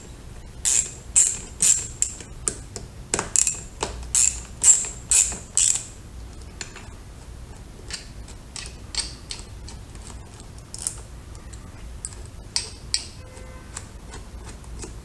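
Ratcheting socket driver clicking as it is worked back and forth to undo a screw. The clicks are loud and quick in the first six seconds, then fainter and more scattered.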